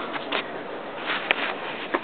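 Handling noise as a camera is picked up and moved: a few scattered knocks and rubs, with one sharp click just past halfway, over a steady hiss.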